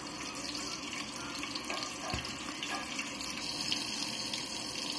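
Garlic butter melting in hot oil in a stainless steel pot: a steady sizzle with many small pops.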